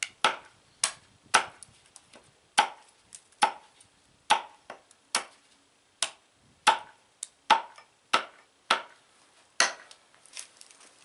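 Modified carpenter's hatchet chopping small chips off the top edge of a wooden stake held on a chopping block: sharp chops, irregularly spaced at about one to two a second, chamfering the stake's top into a crown. The strikes stop about ten seconds in.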